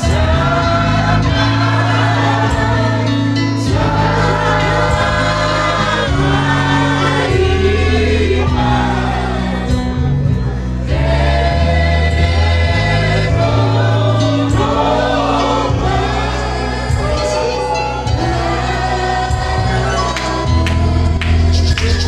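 Live gospel worship singing: a female lead singer on a microphone with a small group of backing singers, over sustained low accompaniment notes. Rattling percussion joins near the end.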